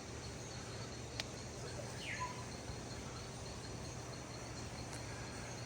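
Faint rainforest ambience: an insect chirring in even, rapid pulses over a low steady hum, with a click about a second in and a short falling bird call about two seconds in.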